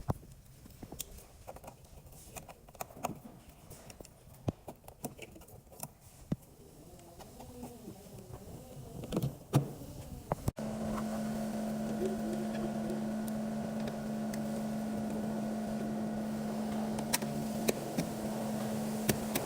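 Scattered light clicks and taps, then, after a sudden cut about halfway, a steady motor hum with a constant pitch.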